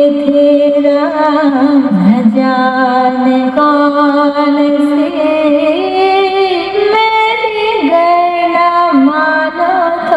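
Music: a song with a high sung melody of held notes that step up and down in pitch.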